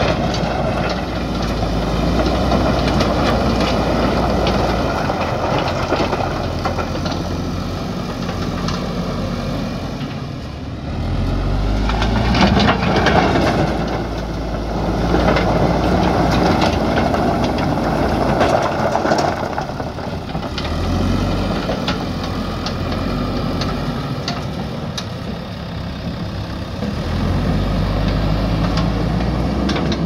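JCB 3DX backhoe loader's diesel engine working hard, its revs rising and falling several times as the front bucket drives into a pile of stones and scoops them, with stones clattering and scraping against the steel bucket.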